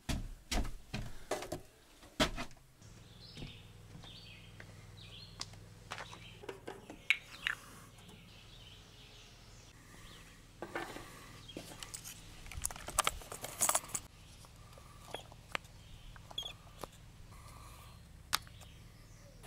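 Scattered clinks, clicks and knocks of hands working on a Stihl string trimmer and a metal fuel can: caps taken off and handled while the trimmer is refuelled. A steady low hum and a few faint bird chirps lie behind them.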